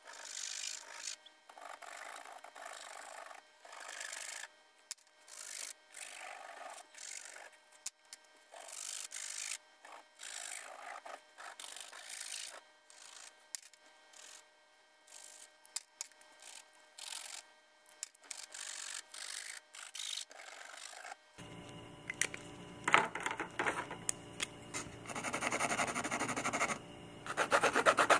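Sharpie felt-tip markers scratching back and forth across a stretched canvas in short bursts of hatching strokes, each under a second with brief gaps. The strokes grow louder and denser in the last several seconds.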